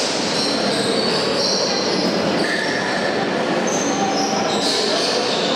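Basketball shoes squeaking on the court in short high squeals, over a steady din of crowd and hall noise.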